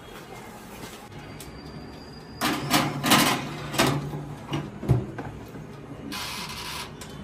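A countertop Morphy Richards oven-toaster-grill is loaded and shut: a run of metal clatter and knocks from about two and a half seconds in ends in a heavy thump near five seconds. A short rasping noise follows near the end.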